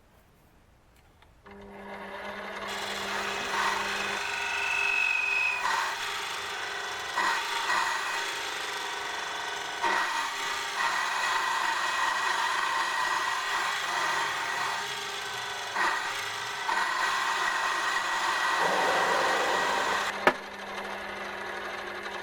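Mini lathe motor starts up and runs with a steady hum while a cutting tool scrapes noisily on a small standoff being turned. About twenty seconds in there is a sharp click, the cutting noise stops, and the motor keeps running more quietly.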